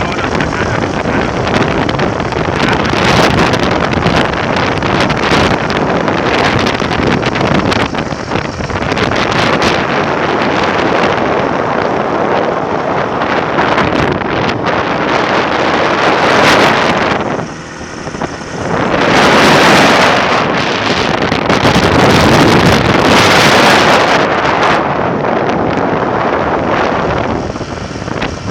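Strong storm wind blowing hard and buffeting the microphone, in loud gusts that swell several times past the middle, with a brief lull just before them.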